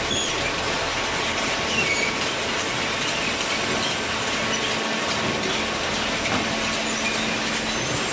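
Hydraulic carton baler running: a steady, dense mechanical noise with a faint hum underneath.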